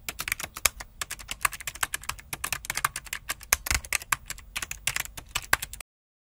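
Keyboard typing sound effect: rapid, irregular key clicks that stop abruptly near the end.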